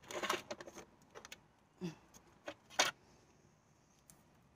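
Plant pot and potting soil being handled as a succulent is worked out of its pot: a burst of rustling and clicking at the start, then a few separate clicks and knocks, the loudest near three seconds in.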